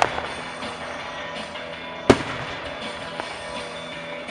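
A firework goes off with one sharp bang about two seconds in, over music playing from a radio.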